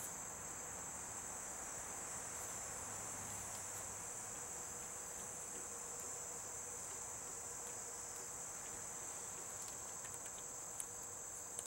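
Steady high-pitched chorus of insects, such as crickets, droning without a break, with a few faint clicks near the end.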